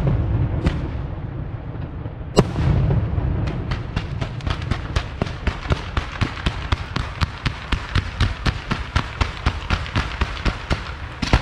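Fireworks going off: a loud bang, then a fast string of sharp shots, about four or five a second, as a barrage of red shells with glittering tails fires up from the ground, ending in another loud bang.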